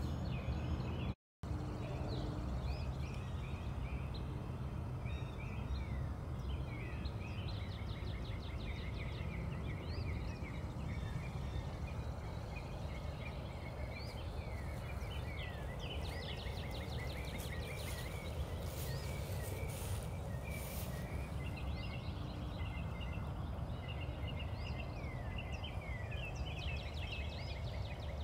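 Several small birds chirping and trilling continuously over a steady low background rumble.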